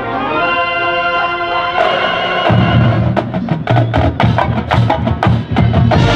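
Marching band playing a sustained wind chord. About two and a half seconds in, the drums and percussion come in with a run of sharp, accented strikes over the held chord.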